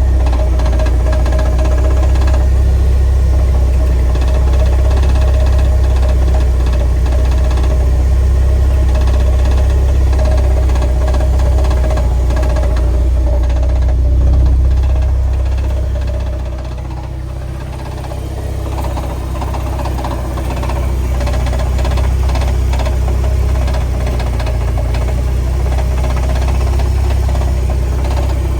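Porsche 968 Tiptronic's 3.0-litre four-cylinder engine running with a steady low drone and a rapid clattering rattle, which the owner places near the gearbox. The sound eases for a couple of seconds about halfway through, then builds back up.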